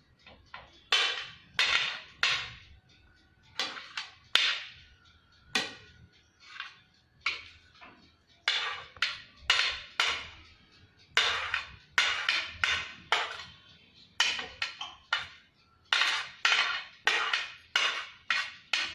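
A utensil clinking and knocking against a mixing bowl as vegetables are added: a long irregular run of sharp clinks, some in quick pairs, each ringing briefly.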